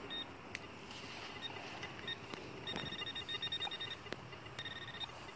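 Garrett Pro-Pointer pinpointer beeping as it is swept over a target in a dug hole: single high beeps, then a quick run of about eight beeps a little under three seconds in and a longer beep near the end, the pinpointer closing in on the metal. Faint clicks and scrapes of digging in soil come in between.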